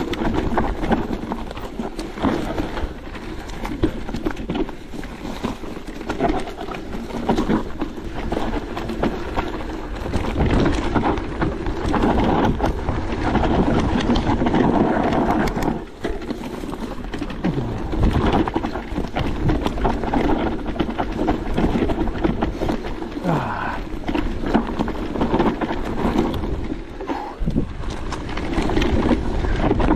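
Merida eOne-Sixty electric mountain bike ridden over rough trail: tyre noise with a continuous clatter of knocks and rattles from the bike.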